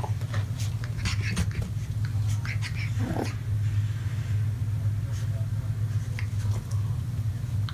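French bulldogs, a puppy and an adult, making scattered short snuffling noises and one brief grunt-like call about three seconds in, over a steady low hum.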